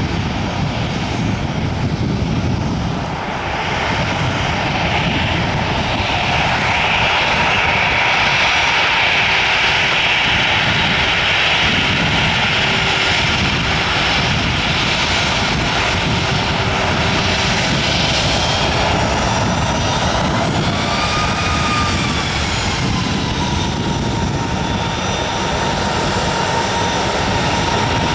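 Airbus A321 jet engines running at low power as the airliner taxis along the runway: a steady rumble and hiss with a high engine whine on top. A few whine tones briefly rise and fall about two-thirds of the way through.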